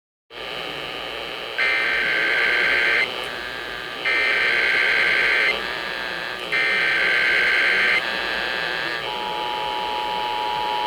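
Emergency Alert System test received over a radio with a steady hiss of static: three bursts of the SAME header's digital data tones, about a second and a half each, then, about nine seconds in, the EAS two-tone attention signal starts and holds steady.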